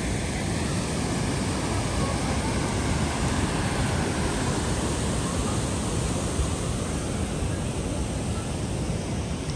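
Water rushing through the open gates of a concrete dam spillway: a steady, even rush of churning white water.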